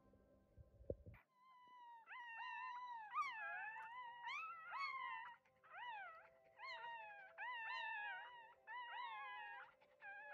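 Newborn West Highland White Terrier puppy crying: a string of about eight high-pitched whines, each under a second and rising and falling in pitch, starting about two seconds in.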